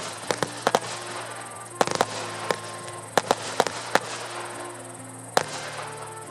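Fireworks going off in an irregular run of sharp bangs and pops, a dozen or so, with the last one well before the end. Music with sustained notes plays underneath.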